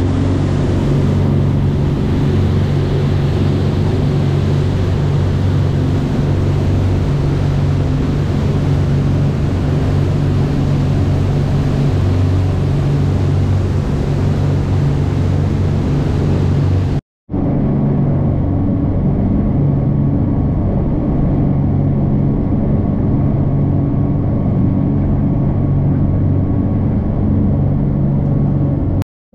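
Twin engines of a Sea Ray 400 Sundancer cruiser running steadily at speed, a deep even drone under the rushing of water and air from the wake. The sound drops out for a moment about halfway through and comes back with a duller, less hissy rush.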